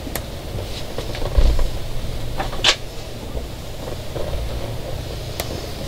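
Wires and a small connector being handled by hand: scattered small clicks and rustles, with a dull thump about a second and a half in and a sharper click near the three-second mark, over a steady low rumble.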